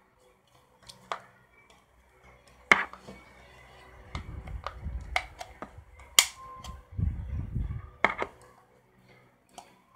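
Plastic housing of a Lyft moustache light being pried apart with a spudger: sharp plastic clicks and snaps, the loudest about three and six seconds in and again near eight seconds. Between them are low rumbling handling noises.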